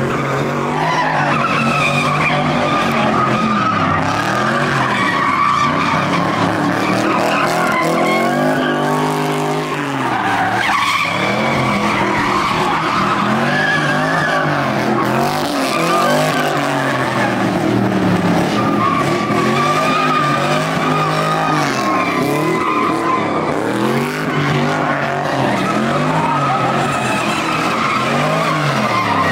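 Cadillac CTS sedan doing donuts, its engine revving up and falling back again and again every couple of seconds over continuous tire squeal as the rear tires spin and burn rubber.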